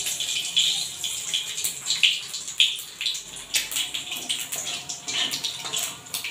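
Nigella seeds (kalo jire) sizzling and crackling as they are dropped into hot oil in a metal kadai, a steady hiss dotted with small pops.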